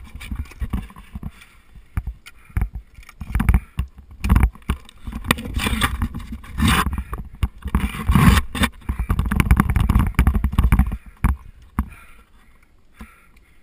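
Ice climbing heard from a body-mounted camera: irregular sharp knocks of ice-axe picks and crampon points striking the ice, amid heavy rubbing and rustling of clothing against the camera, loudest through the middle stretch and easing off near the end.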